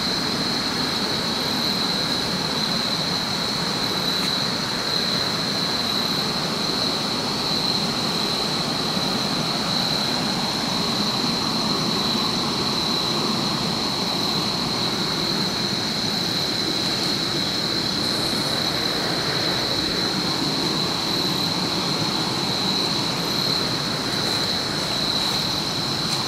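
Steady static hiss from a ghost-box spirit-communication device, with a steady high-pitched tone running through it.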